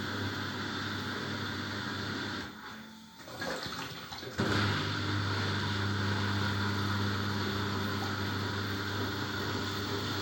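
Samsung washer-dryer in its rinse cycle: a steady low motor hum with rushing water. It drops away about two and a half seconds in, then cuts back in abruptly, a little louder, about four seconds in.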